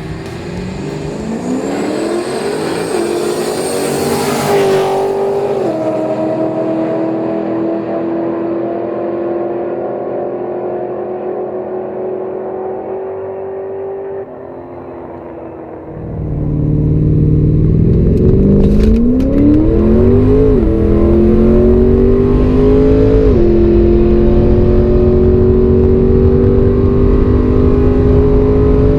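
Holden VZ Commodore's GM L76 6-litre V8 at full throttle, revs climbing and dropping back at each automatic upshift, then holding high. About 16 s in, a second, louder pull climbs through two more upshifts.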